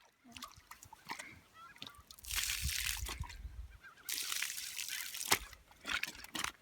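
Water splashing and sloshing around a kayak, in two louder bursts about two seconds apart, with a few faint short calls in the first couple of seconds.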